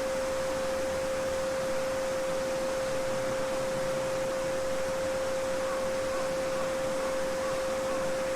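A steady 528 Hz pure tone, the solfeggio frequency, held without a break over the soft, even rushing of a babbling brook.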